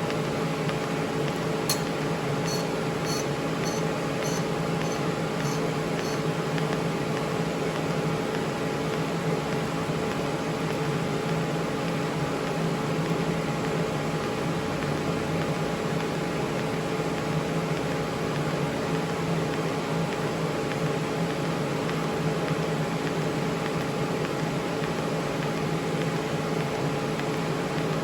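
A DC TIG welder running steadily: an even electrical hum with several steady tones under a hiss.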